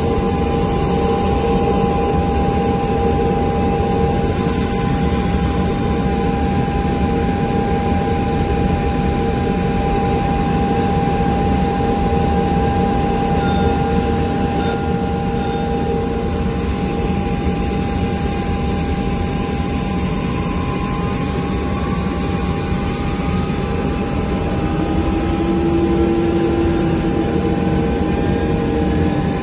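Steady engine noise of an Ilyushin Il-76's four turbofan engines on the landing approach, heard from inside the aircraft, with a constant whine over a steady rush. Three short high beeps sound about halfway through, and a faint rising whine comes in over the last several seconds.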